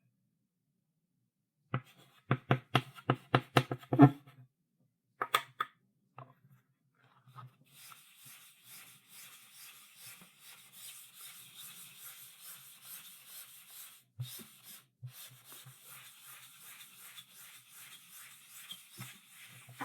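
Chalk on a blackboard: a quick run of about ten sharp taps and short strokes, another near the middle, then a steady soft rubbing scrape across the board for the rest of the time.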